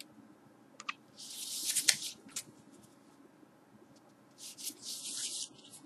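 A cardboard LP record jacket rubbing and sliding against hands as it is turned over and back: two brief hissy rustles, one about a second in and one about four and a half seconds in, with a few light clicks.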